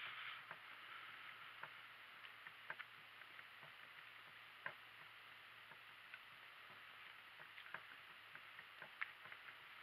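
Donkey cart on the move at a walk: faint, irregular small clicks and creaks from the cart and the donkey's hooves, a few of them sharper, over a low steady hum.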